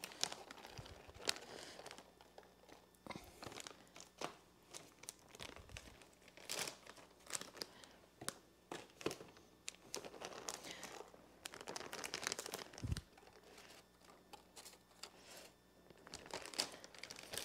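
Faint, scattered crinkling and rustling, with small clicks, as shredded cheese is taken by hand from its package and sprinkled over tortilla chips in a parchment-paper-lined air fryer basket.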